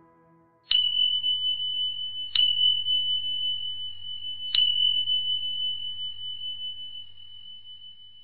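A high, pure bell-like chime struck three times, each strike ringing on in one steady tone that slowly fades away.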